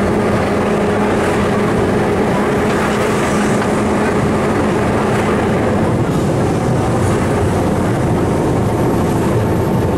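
A historic electric tram heard from inside, running steadily along its rails with a continuous rumble and rattle. A steady low hum sits under it and fades out about halfway through.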